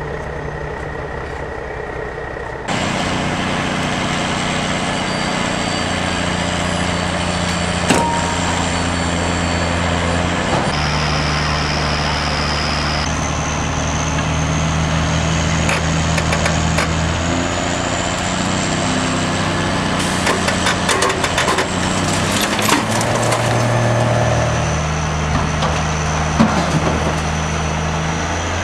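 Heavy tow truck's diesel engine running under load while its boom and winch cables right an overturned semi tractor-trailer. The engine pitch steps up and down several times, with clusters of sharp clicks and cracks in the middle and late part.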